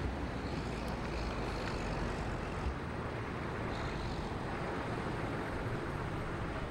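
Steady low rumble of road traffic and vehicle engines, with a brief bump about two and a half seconds in.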